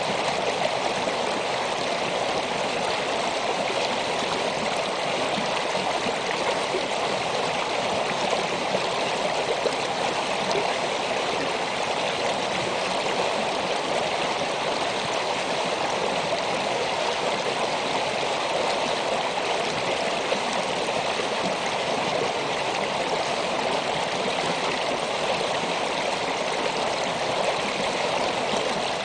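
Shallow stream flowing over rocks: a steady, even babble of running water.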